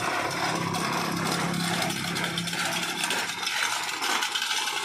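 Steady, rough scraping and rasping of a tool against the truck bed's wall during body repair, with a low hum under it that fades out about halfway through.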